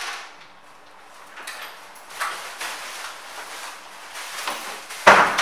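A flat's front door being pushed shut and handled at the lock, ending in one loud clunk about five seconds in. Before it come a few seconds of soft rustling from a plastic carrier bag and shuffling feet.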